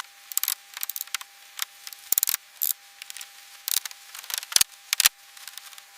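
Hand tools at work: an irregular run of sharp clicks and short hissy snips, a few every second, over a faint steady tone.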